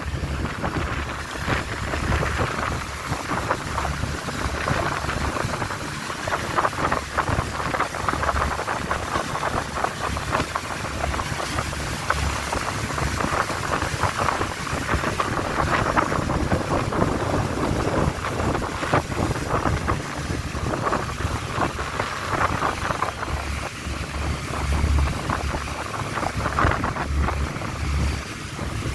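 Motorboat under way: a steady run of engine and rushing water, with wind buffeting the microphone in low, irregular gusts.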